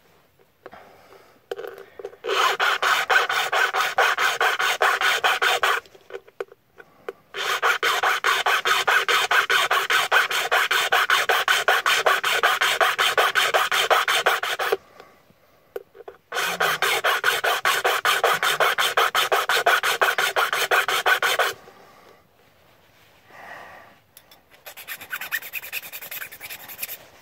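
Hand file rasping back and forth across a key blank in three long runs of quick, even strokes with short pauses between, and lighter scraping near the end: the bitting cuts being filed into the key by hand, without a key machine.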